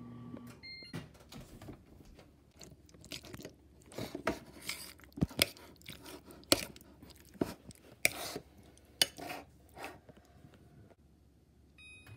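Whirlpool over-the-range microwave's hum stops as its countdown reaches zero, followed by a short beep. Then comes a run of irregular crunching and clattering for several seconds, and just before the end the keypad beeps as its buttons are pressed.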